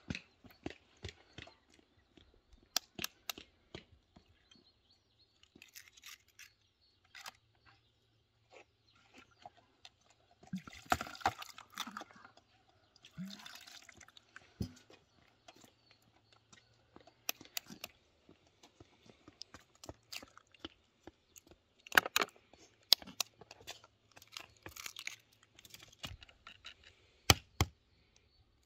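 Eggs being rinsed under water poured from a clay jug and cracked into a bowl: scattered sharp taps and cracks of eggshell, with two short trickles of pouring water a little before the middle.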